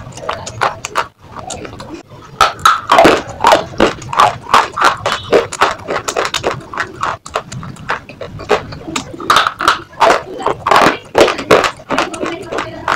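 Pieces of slate being bitten and chewed: a rapid run of sharp crunches and cracks, louder from a couple of seconds in.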